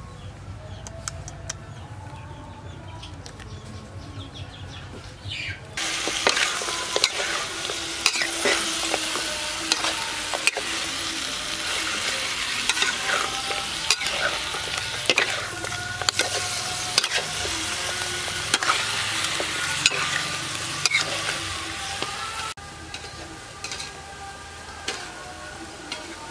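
Pork ribs and pineapple chunks sizzling in a hot wok while a metal utensil stirs and scrapes them, with many sharp clicks against the pan. The loud sizzle starts abruptly about six seconds in and drops to a quieter level near the end.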